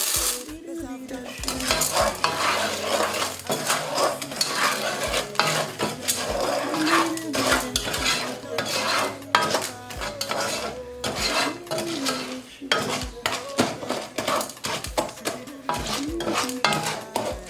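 A utensil stirring popcorn kernels in hot oil and sugar in a metal pot: repeated scraping and clinking against the pot, with sizzling underneath.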